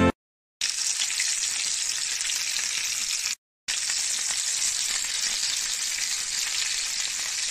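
Skin-on chicken thighs frying in hot oil in a pan: a steady sizzle. It starts after a moment's silence and cuts out for a fraction of a second about three and a half seconds in, then carries on.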